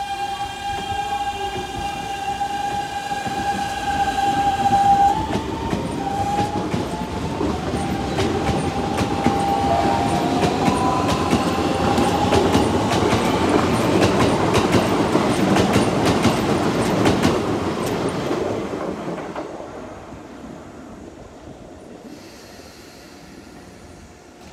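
Keikyu 1000 series electric train's Siemens GTO "Doremifa" traction inverter starting away: a steady whine, then tones stepping upward in pitch as the train accelerates. Wheel noise and clatter over the rail joints grow loudest as the cars pass, then fade as the train leaves.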